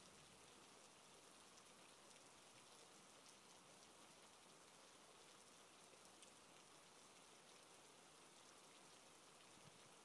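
Near silence: a faint steady hiss, with a few tiny ticks.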